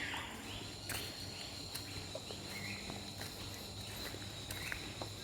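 Forest ambience: a steady high-pitched insect drone sets in about a second in, with faint scattered chirps and a few light footstep clicks.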